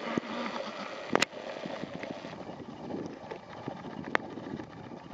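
Footsteps crunching on a gravel path, with a few sharp clicks: a pair just over a second in and one about four seconds in.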